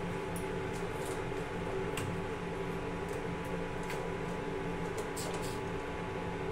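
Induction cooktop humming steadily under a steel saucepan of simmering milk tea, with a few light clinks of a steel spoon stirring against the pan, a cluster of them about five seconds in.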